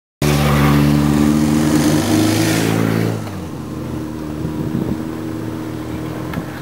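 A motor vehicle's engine running close by, loud and steady at first. Its pitch and level drop about three seconds in as it moves off, leaving a fainter engine hum.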